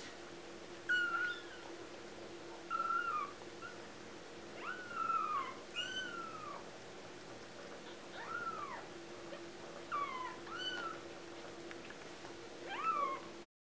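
Two-week-old kittens mewing: about nine short, high calls, each rising then falling in pitch, spread through the span, one kitten answering another.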